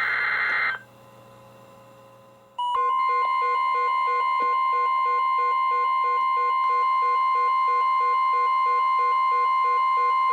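Emergency Alert System SAME header data burst, a harsh digital screech, ending about a second in; after a short pause a NOAA Weather Radio warning alarm tone starts and holds steady and loud, with a pulsing beep about twice a second over it. The alarm tone announces a Severe Thunderstorm Warning.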